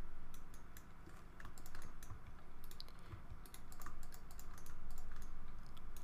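Computer keyboard keys and mouse buttons clicking in short, irregular taps, several a second, as shortcuts are pressed and mesh elements are selected while modeling in Blender.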